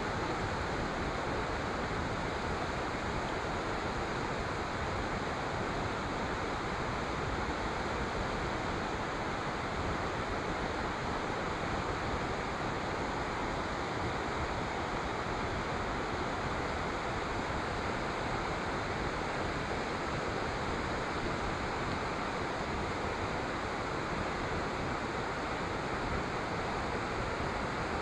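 Mountain torrent rushing over rocks: a steady, even rush of water.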